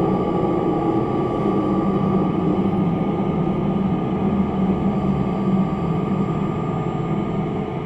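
Cabin noise of the Batara Kresna diesel railbus running slowly into a station: a steady engine and running drone with a constant thin whine above it.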